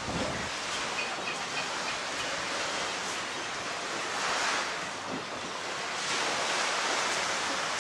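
Small waves washing onto a shingle beach: a steady hiss that swells about four seconds in and again for a second or so near the end.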